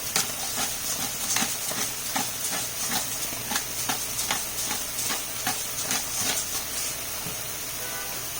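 Food frying in a pan on the stove: a steady sizzle with frequent sharp crackles, about two a second.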